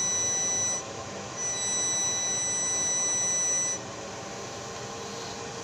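Steady high-pitched sine test tone from an amplifier power test. It drops out briefly about a second in, comes back, and cuts off at about four seconds.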